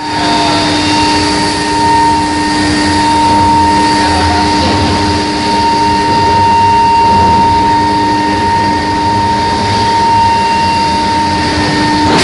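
Induction heating machine running: a steady hum with a constant high tone over even machinery noise.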